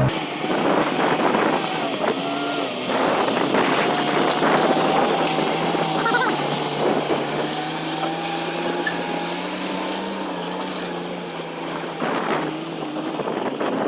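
An engine running steadily, its pitch drifting slightly, with wind noise on the microphone.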